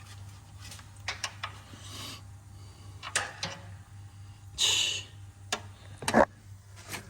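Scattered sharp clicks and knocks, a short hiss about two-thirds of the way in, and one loud thump near the end, over a steady low hum.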